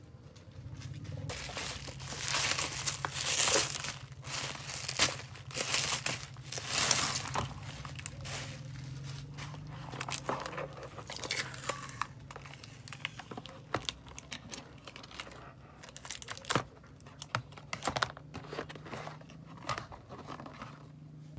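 Bubble-wrap and plastic packaging crinkled and torn off a boxed ring light, densest for the first several seconds, then the cardboard box handled and opened with scattered crinkles, taps and clicks.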